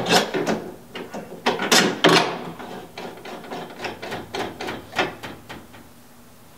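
Metal-on-metal clicks, taps and scrapes of a rod end and its bolt being fitted by hand into a snow bike mount's metal side plate, busiest in the first two seconds and dying away after about five.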